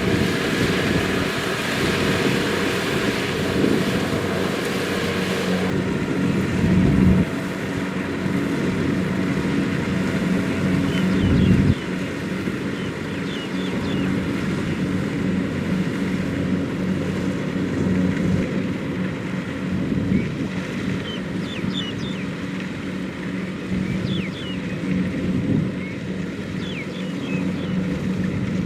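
Kubota DC-70 Plus combine harvester's diesel engine running steadily under harvesting load, with the clatter of its threshing gear. The sound drops a little in loudness about seven and twelve seconds in.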